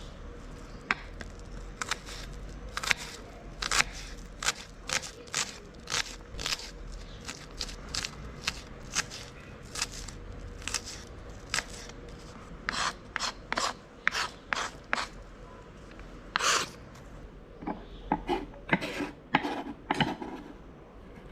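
Knife chopping vegetables on a wooden cutting board: short, sharp, irregular strikes, roughly one or two a second, with a brief lull about two-thirds of the way through.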